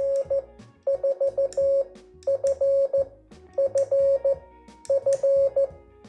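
Morse code sidetone: an iambic paddle sending through an electronic keyer at 15 words per minute, heard as a steady beep in five quick groups of short and long beeps spelling the call sign N4FFF. Light clicks come between the beeps.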